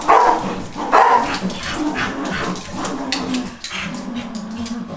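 Dogs barking during rough play: a loud bark at the start and another about a second in, then quicker, quieter barks.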